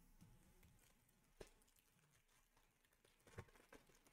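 Near silence, with two faint soft clicks of trading cards being flipped by hand.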